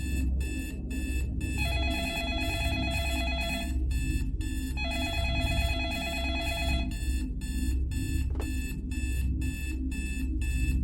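Instrumental intro of a Latin pop track: a bell-like tone pulses about three times a second over a steady low bass. A sustained chord swells in twice, for about two seconds each time.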